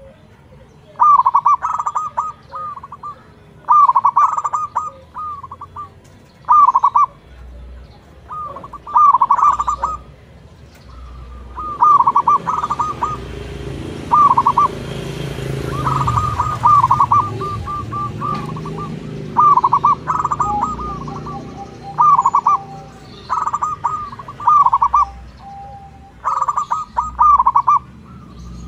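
Zebra dove (local perkutut) cooing: short phrases of rapid, clipped coo notes repeated every one to three seconds, with one longer, drawn-out phrase about halfway through. A low rushing noise swells and fades behind the calls in the middle.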